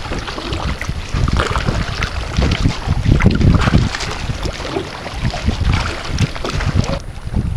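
Wind buffeting the microphone in uneven low rumbling gusts, over water lapping and splashing around a moving kayak.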